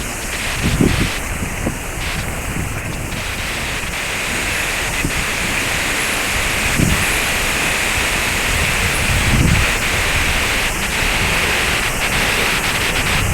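Steady rushing roar of a waterfall, with wind buffeting the microphone a few times.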